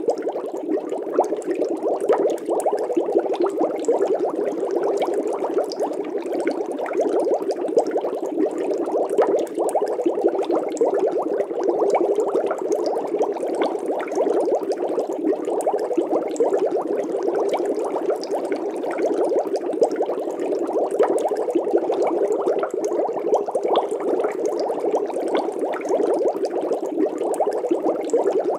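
Water bubbling steadily in a fish tank: a dense, muffled crackle of many small bubbles that does not let up.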